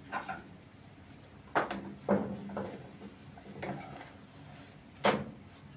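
Kitchen things being handled: about six sharp knocks and clatters, the loudest near the end.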